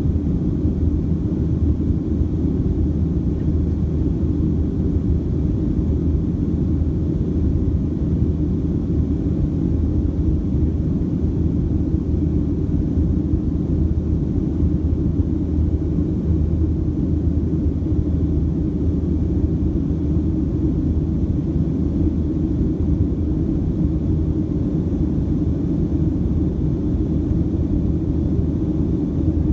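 Steady low drone inside the cabin of a Boeing 737-700 in flight: its CFM56-7B turbofan engines and the airflow over the fuselage, heard from a window seat over the wing.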